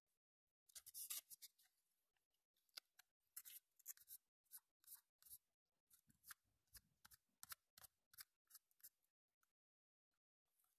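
A quick, irregular series of short scraping strokes, fingernail or coin rubbing a card's surface, as when scratching the coating off a scratch card; the strokes are loudest about a second in and stop after about nine seconds.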